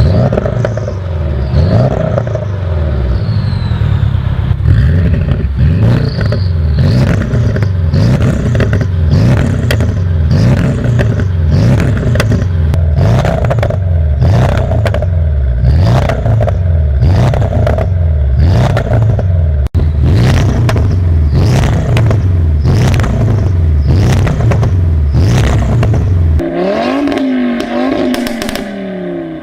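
A performance car's engine is revved in quick repeated blips, and the exhaust gives a sharp pop or crackle each time the throttle is let off. Near the end the deep rumble drops away.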